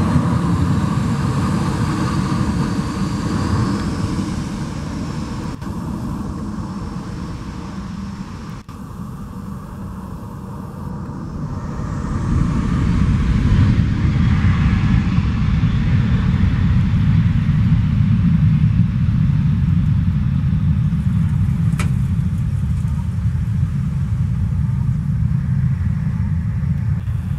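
Boeing 737-700's CFM56-7B turbofan engines, a steady low rumble with a whine over it as the jet turns onto the runway. About twelve seconds in the engines spool up to takeoff thrust and the rumble grows louder and holds as the aircraft rolls away down the runway.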